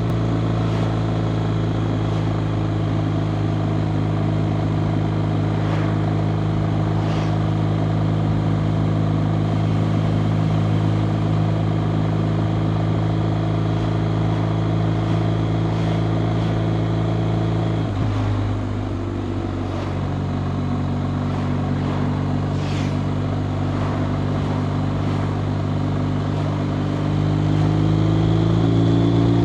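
BMW R 1250 RT's boxer twin engine running at steady cruising revs, heard from the rider's seat. About eighteen seconds in the engine pitch drops suddenly, then holds steady, and near the end the revs climb again as the bike accelerates.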